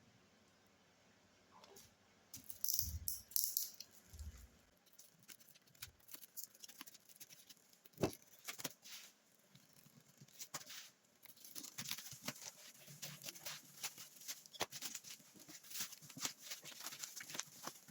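Packaging being handled and opened: crinkling, rustling and many small clicks and taps, with one sharper knock about eight seconds in and denser rustling and clicking in the second half.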